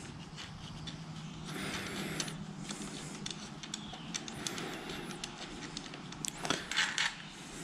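Faint handling noises of a throttle cable being worked into a thumb throttle housing: soft rustling, then a short run of small clicks about six to seven seconds in, over a steady low hum.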